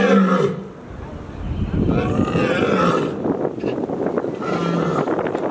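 Lioness roaring in a series of calls: one at the start, a longer one about two seconds in, and another near the end.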